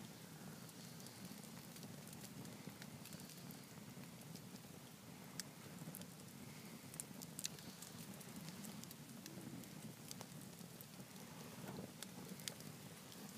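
Wood fire of burning logs crackling softly, with a few sharp pops scattered through it.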